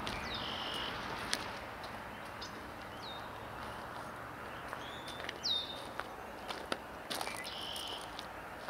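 Birds calling outdoors: sharp down-slurred whistled notes repeat every second or two, twice joined by a short buzzy trill, over a steady background hiss with scattered light clicks.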